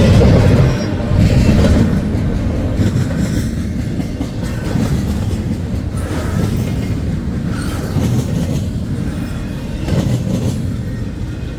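Norfolk Southern freight train rolling past with a loud, steady rumble. Wheels clack at intervals over rail joints.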